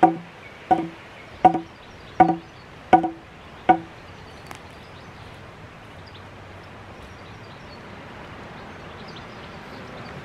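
Six evenly spaced knocks, about one every three-quarters of a second, each with a short ringing tone, as a timber sleeper is struck into place beside the container; after that only a steady outdoor background.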